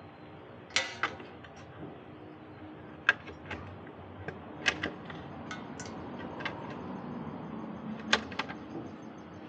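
Metal tools and parts clinking and knocking in a handful of sharp, irregular strikes, the loudest about three seconds in and just after eight seconds, as hands work on a car's rear suspension.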